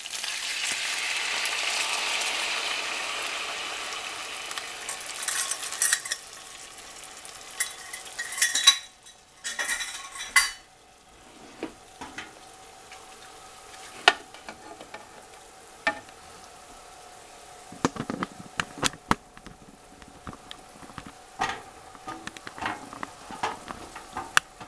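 Soy sauce sizzling loudly as it hits a hot, oiled pan of browned chicken wings, the hiss fading over the first few seconds. After that, scattered knocks, clinks and scrapes of a utensil stirring in the pan over a low frying sizzle.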